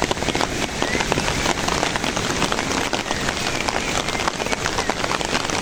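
Heavy rain falling steadily, with a dense spread of close raindrop ticks.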